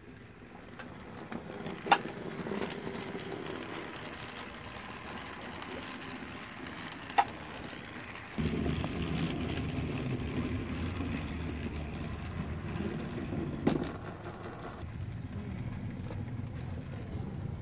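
Toy steam locomotive running on plastic track: a steady rattling hum from its motor and wheels, with three sharp clicks along the way. It gets louder about eight seconds in.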